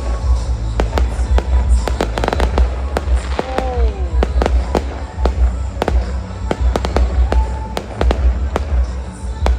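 Fireworks display going off: many sharp bangs and crackles in quick succession over a continuous low rumble.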